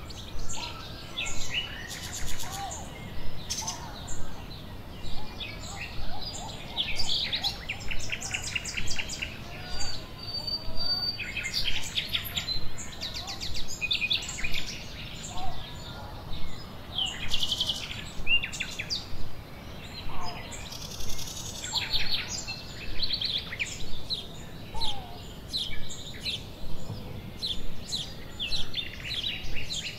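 Songbirds chirping and singing, many short high calls and trills overlapping.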